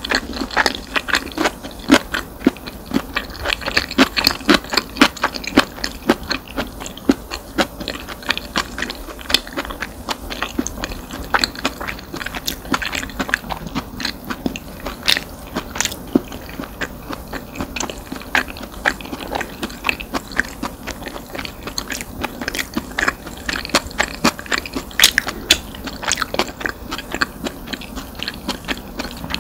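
Close-miked eating of fried rice: a dense run of irregular wet chewing and crunching clicks.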